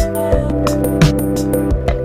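Background music with a steady beat of about one drum hit every 0.7 seconds over held instrument notes.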